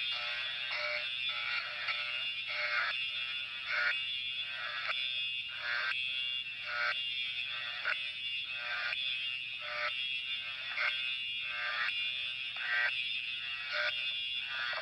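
Simplex fire alarm horn sounding a continuous buzzing tone, swelling in a regular pulse about once a second.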